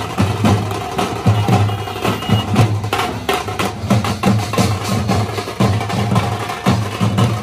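A troupe of large barrel drums beaten with sticks, playing a steady, loud rhythm of deep strokes mixed with sharp, clicking stick hits.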